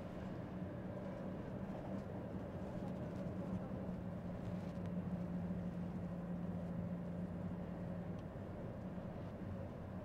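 Steady drone of a car engine and road noise while driving, a low hum that grows a little stronger in the middle.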